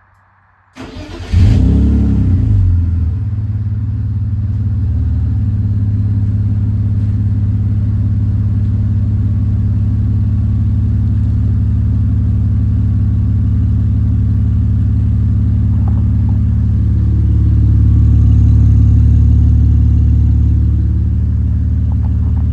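BMW E46 Touring's straight-six engine started through a newly fitted TurboWorks aftermarket rear muffler. It catches about a second in with a short flare of revs, then settles into a steady idle that gets a little louder for a few seconds near the end.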